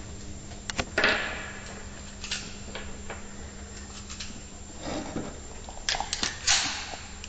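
A few sharp clicks and knocks from handling close to the microphone, a cluster about a second in and another near the end, over a steady low hum.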